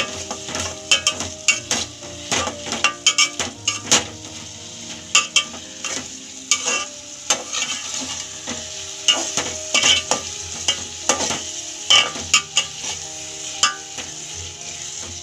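A spatula stirring and scraping potato cubes and pea masala in an aluminium pot, with frequent irregular clinks against the metal over a steady sizzle of frying in oil.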